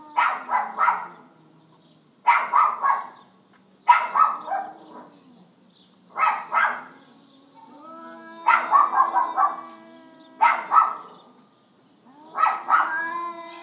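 A dog barking in quick bursts of several short, sharp barks, with a burst about every two seconds.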